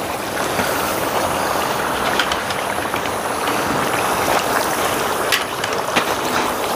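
Chunks of pork frying in a large pan of bubbling lard: a steady sizzle with scattered crackles and pops.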